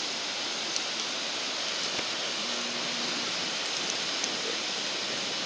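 Ocean surf breaking and washing up the beach: a steady, even hiss.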